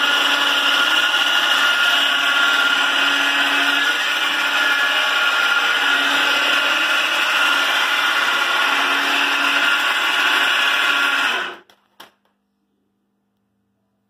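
Electric winch motor running under power, driving the lift along its rail: a steady high whine with a lower note that swells and fades a few times. It cuts off abruptly near the end, followed by a single short click.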